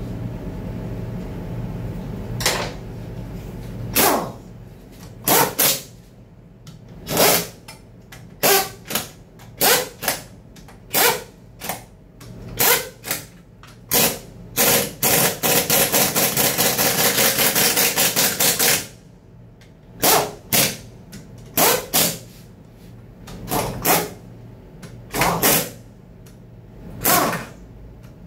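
Pneumatic impact wrench driving the oil pan bolts on a Chevrolet Tahoe automatic transmission, in short bursts every second or two with one long run of rapid hammering lasting about four seconds midway. A steady low hum runs under the first few seconds.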